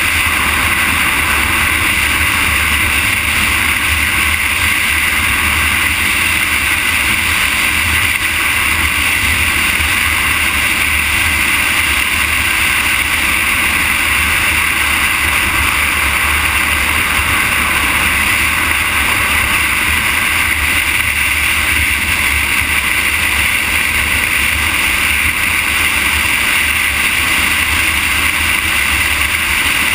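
Steady rush of wind over the microphone mixed with tyre noise on asphalt from a moving vehicle, even and unchanging, with a low rumble underneath.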